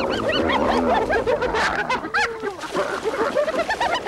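Several spotted hyenas giggling and yelping over one another, a dense chatter of short high calls that rise and fall in pitch, the sound of hyenas squabbling at a kill.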